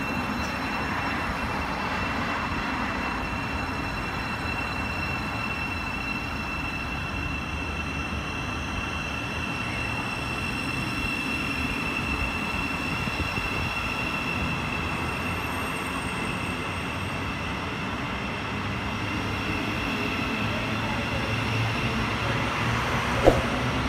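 Thameslink Class 700 electric multiple unit rolling along the platform: a steady rumble with a high whine held above it, and one sharp click near the end.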